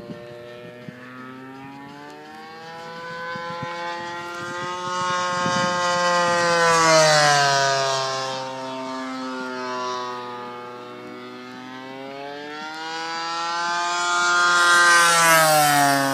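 36cc gas engine of an RC Seagull Dewoitine model plane, turning an 18x10 propeller, in two low flybys: the engine note climbs in pitch and loudness as the plane comes in, is loudest about seven seconds in and again near the end, and drops in pitch as it passes away.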